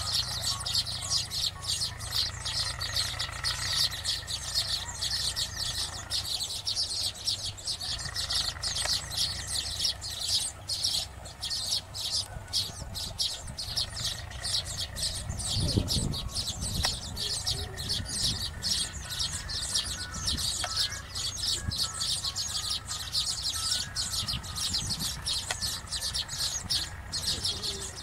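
A colony of baya weavers chattering and chirping without pause: dense, rapid high-pitched calls from many birds at once. A brief low rumble comes a little past halfway.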